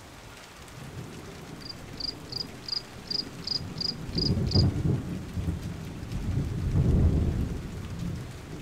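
Fingers rubbing dried masking fluid off a sheet of Nara paper: low, uneven scuffing and rubbing that swells about four seconds in and again about seven seconds in. Through the first half there is a run of about nine short high chirps, about three a second.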